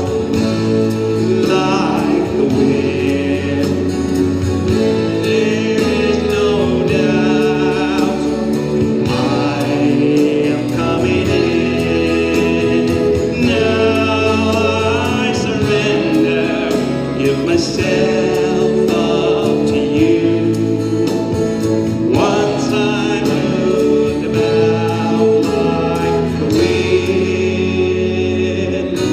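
Instrumental music: a violin melody with vibrato, playing long held notes over sustained backing chords and a steady bass.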